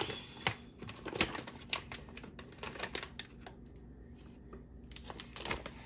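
Irregular light clicks and taps with a little rustle, from a bag of garlic bulbs and other items being handled on a kitchen counter. The clicks are sharp and closely spaced for about three seconds, then the sound goes quieter.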